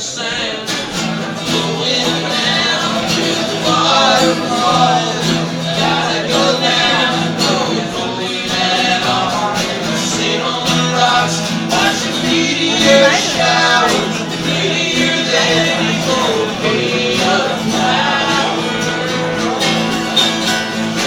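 Live band playing a song: guitar with a singing voice over sustained low notes.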